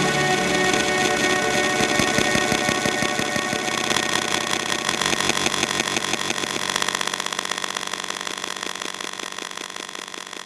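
Electronic beat music played live on Roland SP-404 samplers: a dense, noisy texture of rapid, evenly repeating pulses that fades down over the last few seconds as the track ends.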